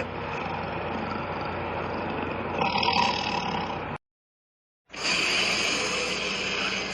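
Megalosaurus roar and growl sound effects: a noisy, unpitched growl that swells a little about three seconds in and cuts off suddenly. After about a second of silence, a second, brighter and hissier growl begins.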